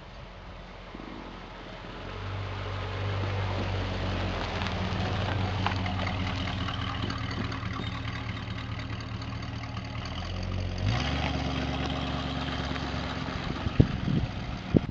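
1969 Ford Fairlane's engine running steadily through its Thrush mufflers, getting louder about two seconds in. Its note shifts about eleven seconds in, and sharp knocks come near the end.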